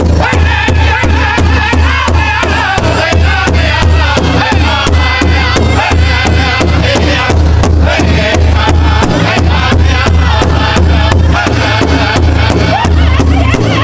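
Powwow drum group singing a hoop dance song: several men singing together while striking one large shared powwow drum with drumsticks in a steady unison beat, about three beats a second.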